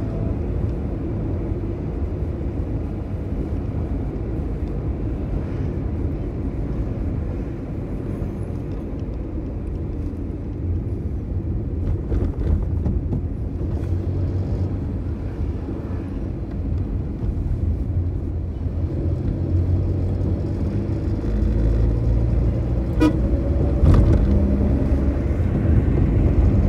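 Engine and road rumble of a car driving at steady speed, heard from inside the cabin, with two sharp knocks near the end.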